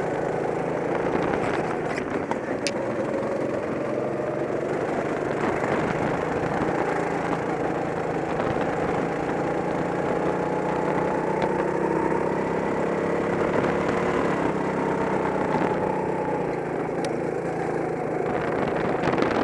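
Go-kart engine running hard, heard from the driver's seat, its note rising and falling as the kart accelerates and lifts for the bends.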